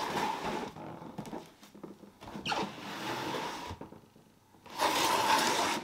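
Cardboard shoebox being handled and turned in the hands, making scraping and rubbing noises in several bouts. The loudest bout comes near the end.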